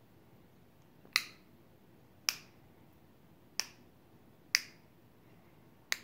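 African grey parrot making five sharp, snap-like clicks, spaced roughly a second apart.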